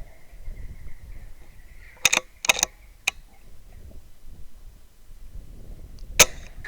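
An air rifle firing once, a single sharp crack about six seconds in and the loudest sound here. A few shorter sharp sounds come about two to three seconds in.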